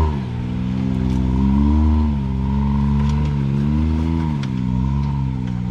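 Side-by-side UTV engine running at low speed, its revs rising and falling in slow waves of about a second each, with a steady high whine alongside.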